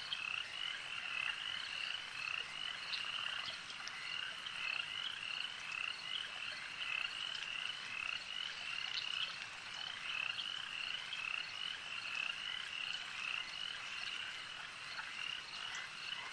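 Frogs calling at night: a steady chorus of short, high-pitched chirps repeating several times a second.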